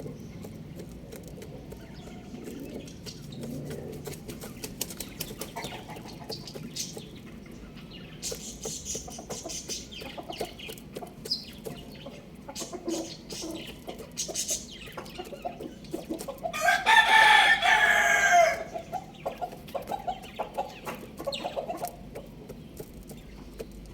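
Chickens clucking, with scattered small clicks and scratches. About two-thirds of the way through, a rooster crows once, a loud call about two seconds long.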